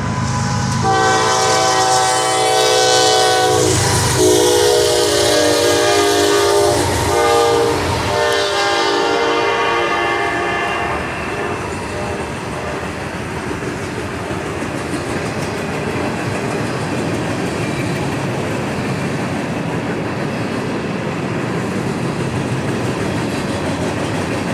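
A diesel locomotive's multi-chime air horn sounds three long blasts over the first ten seconds. After that the train rolls past with a steady rumble and clatter of wheels on rail.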